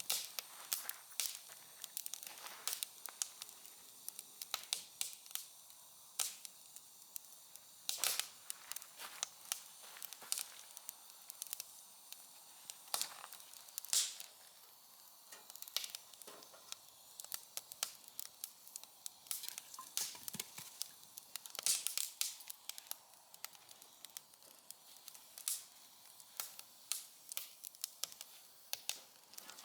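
Wood fire crackling, with irregular sharp pops and snaps over a faint steady hiss and a few louder snaps.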